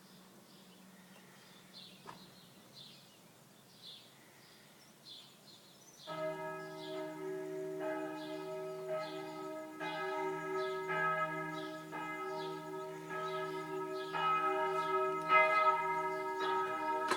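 Faint birds chirping, then church bells start pealing about six seconds in: several bells at different pitches, struck about once a second with overlapping, ringing tones, growing louder towards the end.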